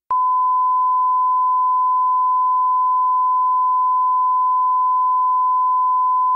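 A loud, steady electronic test tone: one pure pitch held unchanged for about six seconds, starting abruptly and cutting off suddenly.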